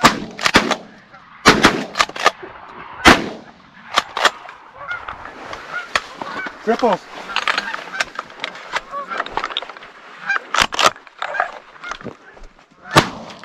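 A flock of geese honking while 12-gauge shotgun blasts ring out: a fast string of shots in the first four seconds, two more about ten seconds in, and another near the end.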